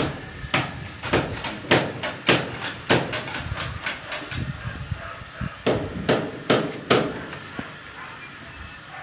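Repeated hammer blows, sharp and evenly spaced at about two to three a second, stopping after a few seconds and then resuming with a short run of strikes.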